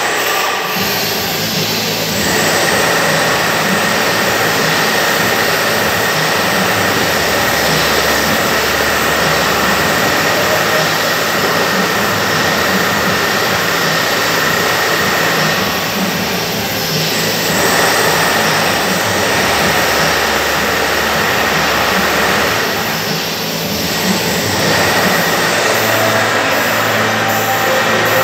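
Steady, loud rushing noise with a thin, high, steady whine running through it.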